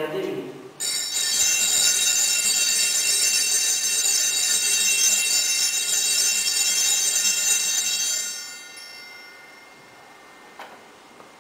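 Altar bells rung at the elevation of the chalice during the consecration: a bright, high ringing that starts just under a second in, holds steady for about seven seconds, then fades out, followed by a faint click near the end.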